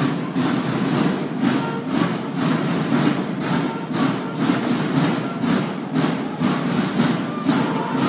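A Mexican banda de guerra, a drum-and-bugle marching band, playing a march: massed snare drums beat a steady rhythm of about two to three strokes a second, with short bugle notes sounding over the drums.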